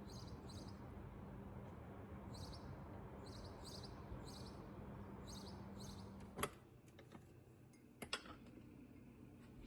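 Repeated short high chirps, like small birds, over a steady background noise and low hum. About six and a half seconds in, a sharp click, then quieter, with a few more sharp clicks.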